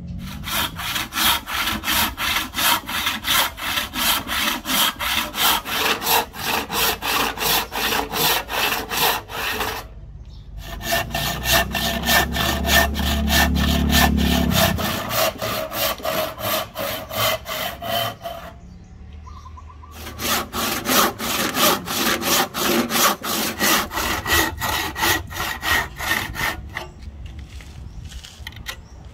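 Hand saw cutting wood in quick, even back-and-forth strokes, stopping twice briefly. A low hum sounds for a few seconds around the middle.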